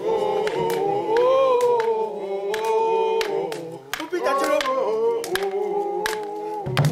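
A group of voices singing together in a sustained, chant-like line, with many sharp strikes and a brief break in the singing about four seconds in.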